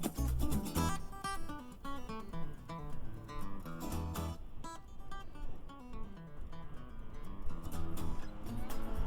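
Background music led by plucked acoustic guitar, its notes falling in stepwise runs.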